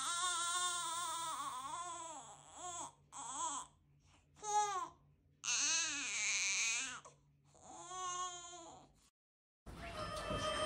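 A baby crying: a series of wailing cries, wavering in pitch, with short breaks between them, which stop about nine seconds in. Music starts just before the end.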